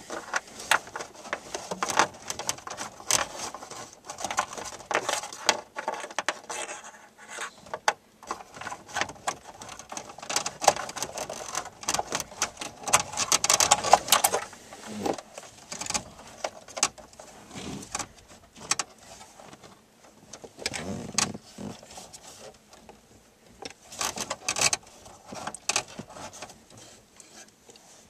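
Hands working cables and connectors at the back of a pulled-out car stereo head unit: irregular clicks, taps and rattles of plastic and metal, with rustling, busiest about halfway through.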